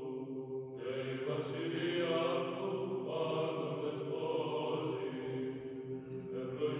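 Soft background music of a choir chanting slowly on long held notes.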